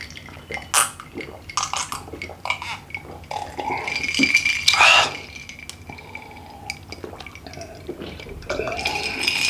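Drinking from a glass beer mug of iced drink: ice cubes clink and rattle against the glass amid liquid sloshing and swallowing. There are scattered small knocks and two stretches of clinking with a ringing glass tone, the louder one about halfway through.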